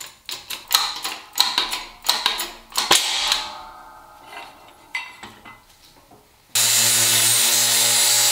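Quick metallic clicks and clanks as a hydraulic bottle-jack shop press is worked to push a ball joint out of a Dana 44 steering knuckle. About six and a half seconds in, an angle grinder starts abruptly and runs steadily, grinding metal, and it is the loudest sound.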